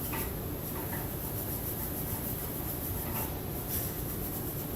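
Steady rubbing as a freshly TIG-welded stainless steel weld is scrubbed clean while still hot, done so the heat discoloration doesn't set black as it cools.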